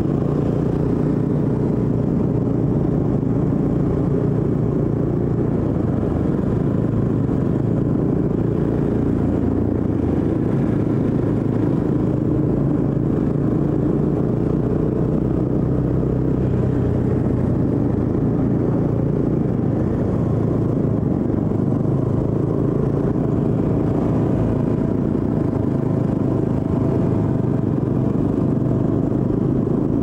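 Motorcycle engine running at fairly steady revs, heard from on board the moving bike.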